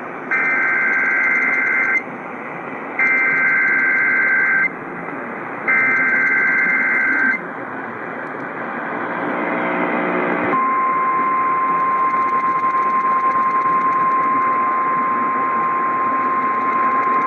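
Emergency Alert System header received over AM radio: three bursts of SAME digital data tones, two alternating pitches, each under two seconds and about a second apart, encoding a severe thunderstorm warning. After about three seconds of radio hiss, the steady single-pitch 1050 Hz National Weather Service alert tone begins about ten seconds in and holds.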